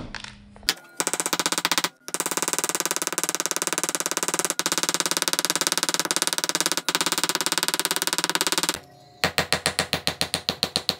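Small 7-ounce jeweler's ball-peen hammer peening copper rivets in a leather wallet on a metal block, in fast, even runs of light taps. There is a brief break about two seconds in and a short pause near the end, followed by a last run of distinct taps, about eight a second.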